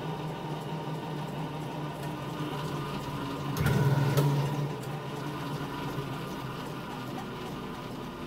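Glass lap wheel coasting with its motor switched off, the spinning platter giving a steady hum. About three and a half seconds in, a louder low rumble with a knock lasts under a second.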